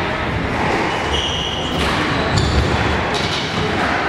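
Squash players' shoes squeaking and thudding on a wooden court floor between rallies, with a couple of short high squeaks and a dull thud about two and a half seconds in. A steady murmur of the hall runs underneath.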